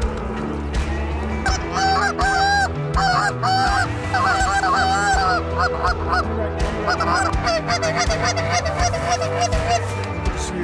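Geese honking: a long run of quick, repeated honks, thickest a couple of seconds in and thinning towards the end.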